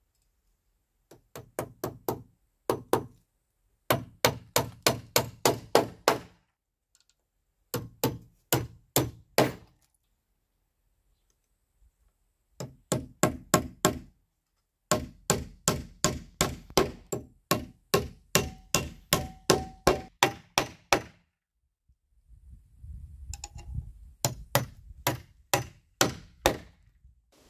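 Claw hammer driving nails through galvanized steel angle brackets into a softwood timber post and beam. The strikes come in six quick runs of about three or four blows a second, with short pauses between nails.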